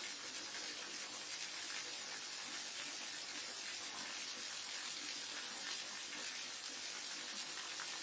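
Waterfall: falling water rushing steadily as an even, mostly high hiss with little low rumble.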